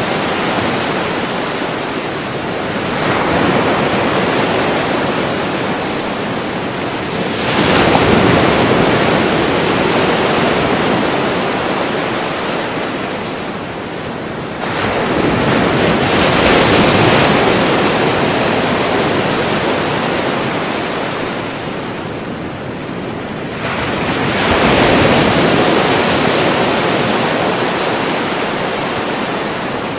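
Ocean waves breaking on a shore in a continuous wash of surf, with a fresh wave crashing about every seven to nine seconds, each swelling and then slowly fading.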